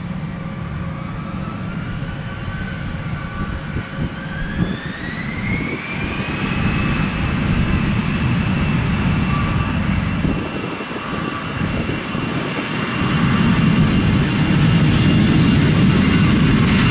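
Airbus A320 jet engines spooling up for take-off: a whine rises in pitch about five seconds in and then holds steady, while a low rumble grows louder near the end.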